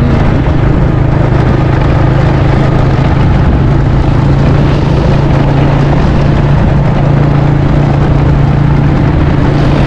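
Motorbike engine running steadily at cruising speed on a dirt road, a constant low hum under heavy wind rush on the microphone.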